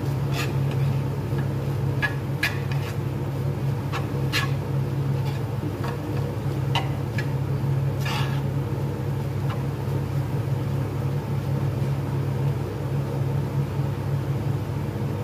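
Spatula scraping and knocking against a metal frying pan of minced meat being stirred, a few short clicks and scrapes in the first half, over a steady low mechanical hum.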